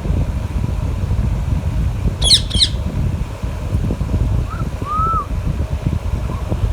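Parakeet giving two sharp squawks in quick succession, then a couple of soft, short whistled notes, over a steady low rumble.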